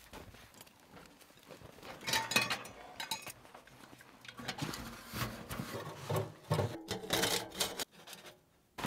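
A metal tent stove and its stovepipe being handled and fitted together: irregular short bursts of metal clinking, scraping and rubbing. The sound stops abruptly near the end.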